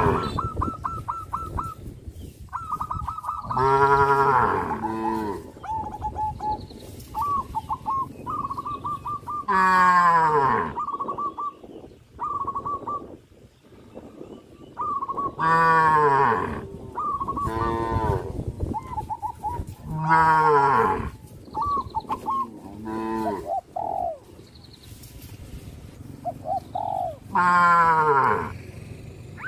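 Cows mooing again and again: several long, loud calls that slide down in pitch, spread a few seconds apart. Between the moos a bird calls in short, repeated high notes.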